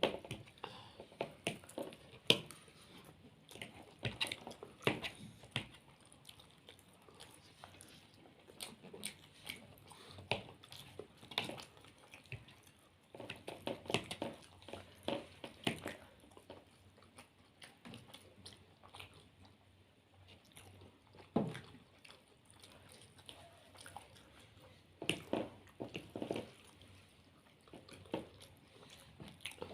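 Close-miked eating sounds: chewing and biting into soft momos and chilli potato, with wet mouth smacks and clicks in irregular clusters.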